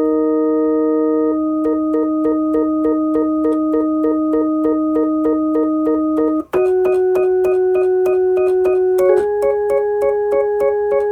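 Electronic organ or keyboard music: held chords under a short note repeated about three to four times a second, with the chord changing about halfway through and again near the end.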